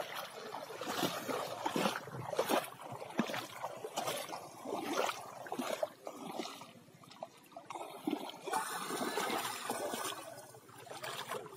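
Shallow pond water sloshing and splashing around a person's legs as they wade through it and drag a cast net. The splashes come unevenly, about every half second, with a steadier rush of water for a couple of seconds near the end.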